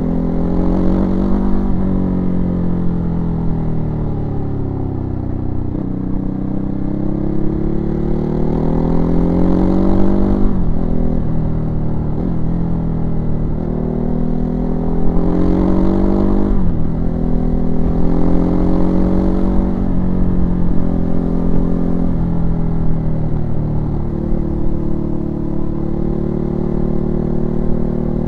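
Ducati Hypermotard 939's L-twin engine heard from on board, pulling up through the revs and backing off again several times. There are sudden drops in pitch about ten and sixteen seconds in, as the throttle closes or a gear changes.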